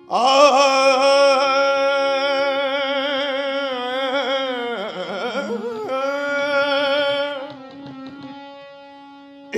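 A qawwali singer opens with one long held sung note, wavering with vibrato, and breaks into a quick run of ornaments about five seconds in, accompanied by harmonium. The voice stops about seven seconds in, leaving a quieter steady harmonium drone.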